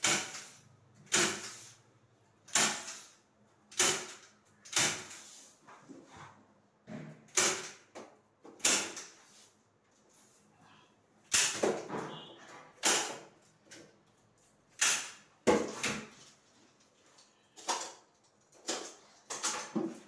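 Hands fitting a Velcro-fastened mosquito net to a window frame: a string of short rasping and scraping noises, irregular, roughly one every second, each starting sharply and fading quickly.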